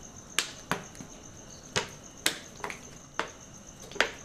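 Sharp crackling pops, about eight at irregular intervals, from the wood fire in a clay stove under a steel karahi, over a steady high chirping of crickets.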